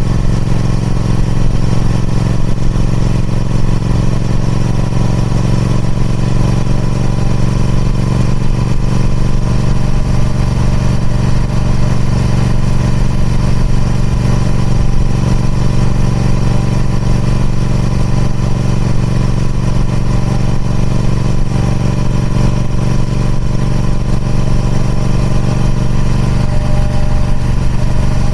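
Triumph Speed Twin 1200's 1200cc parallel-twin engine running through its stock exhaust, holding a steady, even note with no marked revving.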